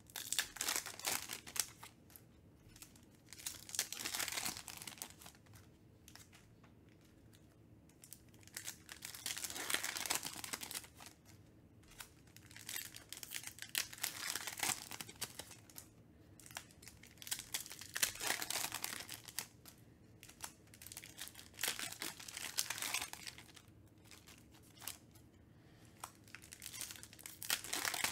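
Foil wrappers of Panini Donruss Optic basketball card packs crinkling and tearing open. The crinkling comes in bursts every four or five seconds, one pack after another.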